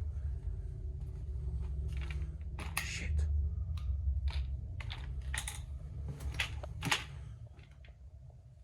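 Irregular sharp clicks and crunches, like footsteps on rubble and debris, over a low rumble. The clicks are loudest in the middle of the stretch and thin out near the end.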